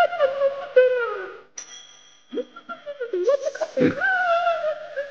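Cartoon caveman characters' high-pitched gibberish exclamations, gliding up and down. A bell rings once about a second and a half in, a boxing ring bell marking the start of round two.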